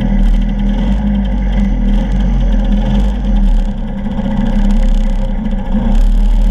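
Scooter engine running steadily at low speed as the scooter rolls slowly, the engine note holding fairly even with small rises and dips.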